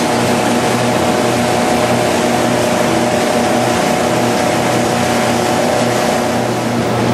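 Machinery of a dried-seaweed cleaning line running: a loud, steady hum with a hiss over it.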